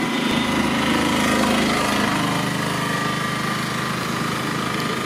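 A small motor running steadily with a humming pitch, strongest in the first couple of seconds and then easing a little, over steady street noise.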